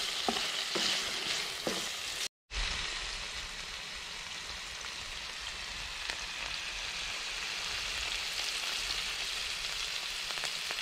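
Diced lamb sizzling steadily in hot oil in a non-stick camping frying pan, with a wooden spoon stirring and knocking lightly in the first couple of seconds. The sound cuts out completely for a moment just over two seconds in.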